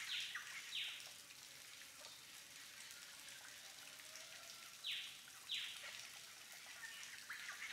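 Shallow stream trickling softly over stones, with short, high chirps that fall sharply in pitch, heard in pairs just after the start and again around five seconds in.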